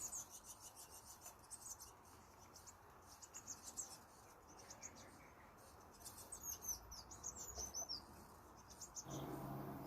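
Faint high-pitched chirping of blue tits: rapid short notes early on, then a run of quick curving calls about six seconds in.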